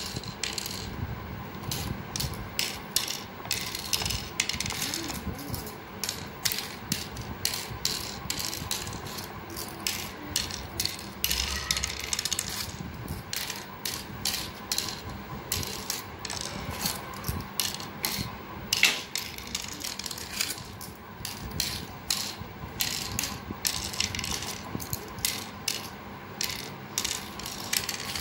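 Cowrie shells clicking as they are dropped one by one into the cups of a pallanguzhi board, a few small clicks a second, while the shells are sown around the board.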